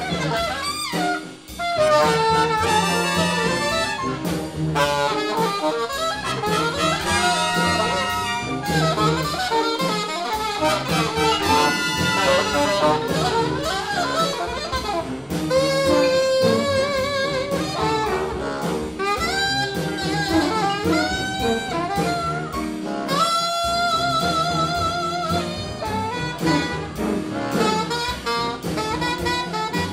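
Background jazz music with a horn melody over a steady band accompaniment.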